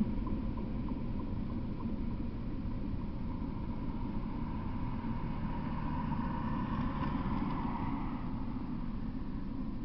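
A pickup truck driving past, its engine and tyre noise swelling to its loudest a little past the middle and fading near the end, over a steady low rumble.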